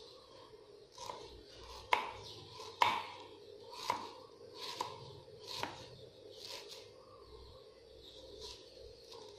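Knife slicing ginger root on a wooden chopping board: a series of sharp knocks about a second apart as the blade hits the board, the loudest two around two and three seconds in, thinning out after about seven seconds.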